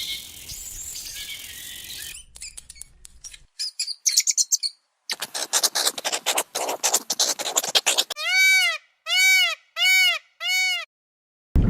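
Several short bird-call clips in a row: quick chirps and twittering, then a fast dense run of chirping, then four clear, evenly spaced arching calls.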